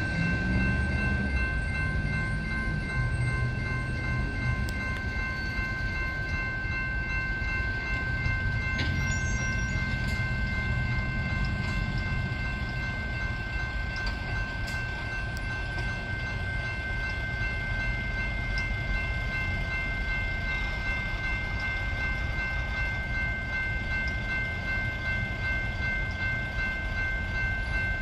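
Railroad grade-crossing warning bells ringing steadily, with a low rumble underneath.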